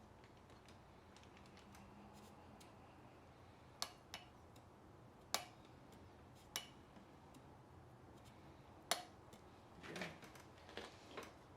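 Small metal engine parts and tools being handled, giving about five sharp, separate clicks spread over several seconds, then a brief run of softer clatter near the end, over a faint steady hum.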